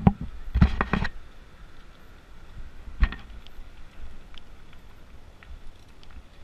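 Bike rolling down a gravel trail: a steady low rumble of tyres on gravel, with a quick cluster of rattling knocks about half a second to a second in and a single sharp knock about three seconds in as the bike goes over bumps.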